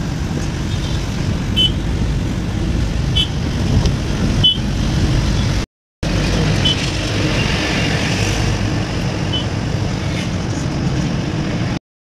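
Steady road and engine rumble heard from inside a moving taxi, with a few faint short high beeps now and then. The sound breaks off briefly about halfway through and stops just before the end.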